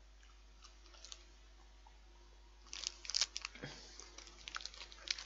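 Plastic chocolate-bar wrapper crinkling as it is picked up and handled: a few faint ticks at first, then a quick run of sharp crackles and clicks from about halfway through.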